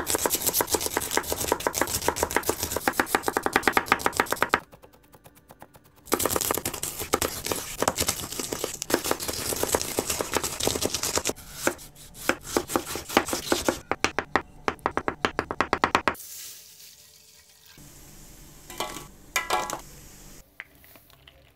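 A steel kitchen knife chops rapidly through shallots and then green chilies on a wooden cutting board, in quick, even strokes. The strokes stop for about a second and a half after the shallots. The chopping ends about three quarters of the way through, leaving a faint hiss and a few light clicks.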